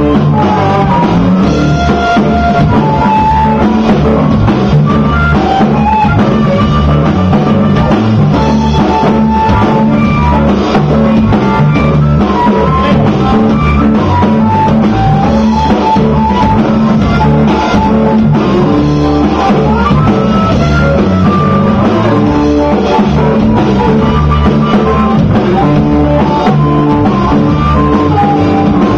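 A live band playing: an amplified harmonica, cupped against a microphone, carries the lead melody in held, bending notes over drum kit and electric bass.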